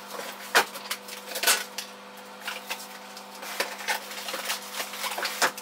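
Wooden spoon stirring caramel-coated popcorn in a stainless steel pot: irregular scrapes and light knocks against the pot, over a faint steady hum.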